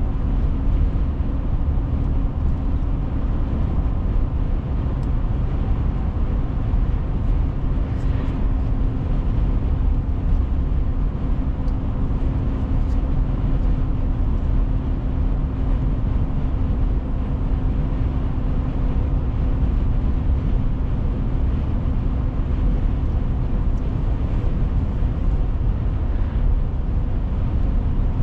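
Steady road and engine noise heard inside a moving car: a low tyre rumble with a steady droning hum.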